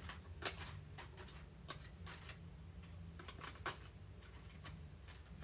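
Trading cards being flipped and slid through by hand: faint, irregular ticks and snaps of card edges, about a dozen over a few seconds, over a low steady hum.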